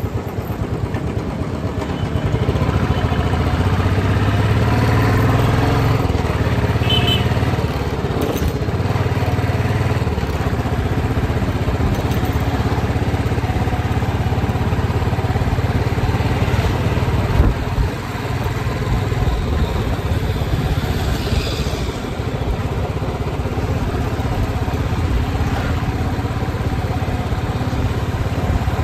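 Motorcycle engine running under way, with wind and road noise. The engine picks up about two seconds in as the bike pulls away, then holds steady. There is a single brief knock a little past halfway.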